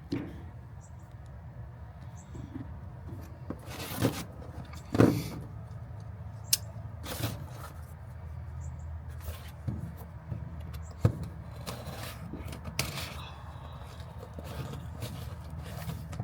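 A package being cut open and unpacked: cardboard and plastic wrapping rustling and scraping in short separate bouts, with a few sharp clicks, over a steady low hum.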